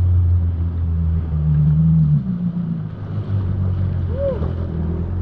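Yamaha WaveRunner's four-stroke engine running at low speed; its pitch rises briefly, then eases off about two seconds in.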